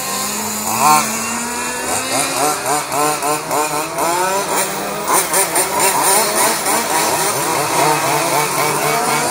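Several 1/4-scale RC cars' Zenoah 270RC two-stroke petrol engines racing past, revving up and down in quick overlapping rises and falls of pitch.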